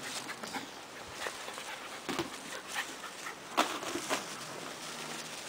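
Small dog scuffling about in the grass, with a few short, scattered scuffs and clicks.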